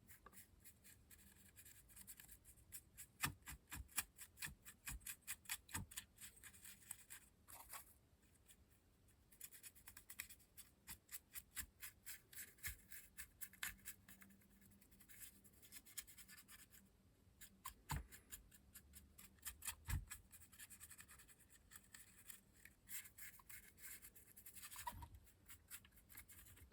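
Faint, quick scrubbing strokes of a paintbrush working a wet black weathering wash over the body of an OO gauge model locomotive, pausing now and then, with two soft knocks about two-thirds of the way through.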